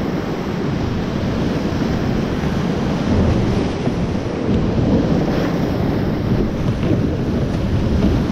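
Loud, steady rush of whitewater, heard close up from a kayak running a steep creek rapid, with water splashing over the boat and paddle.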